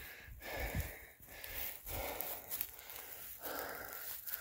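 Heavy breathing of a person on foot, in and out about once a second.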